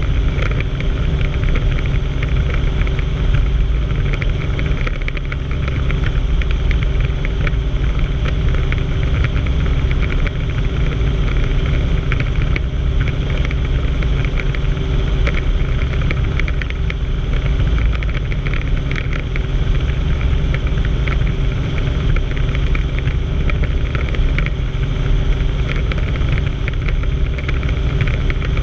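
Helicopter in steady cruise flight, heard from inside the cabin: a continuous loud drone of rotor and engine, with several steady low hums under a rushing noise.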